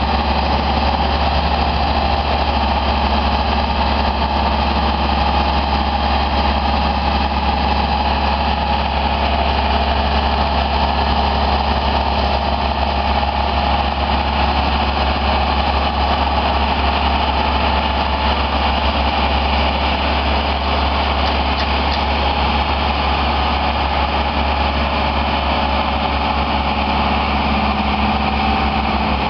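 Genie S-80 telescopic boom lift's engine running steadily while the boom is swung and extended from the basket.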